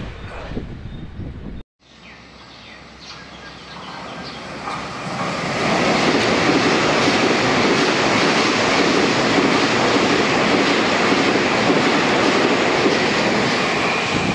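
Taiwan Railway train passing at high speed. Another train's sound cuts off abruptly about two seconds in. Then the next train's noise builds over a few seconds as it approaches and stays loud and steady while the cars rush past.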